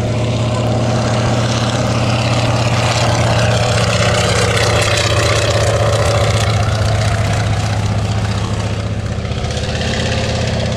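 Antonov An-2P biplane's nine-cylinder Shvetsov ASh-62 radial engine and propeller running steadily on a low pass. It grows louder towards the middle and eases slightly as the plane banks away.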